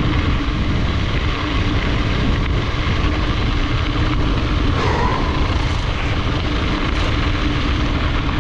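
Steady wind rush and rumble on a camera carried by a cyclist riding on a gravel road, with a brief faint squeak about five seconds in.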